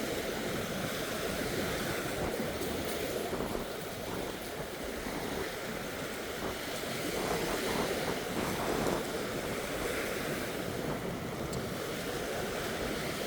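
Waves washing steadily onto a beach, with some wind on the microphone.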